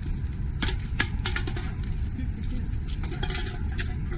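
Wind rumbling on the microphone, with scattered light clicks and taps.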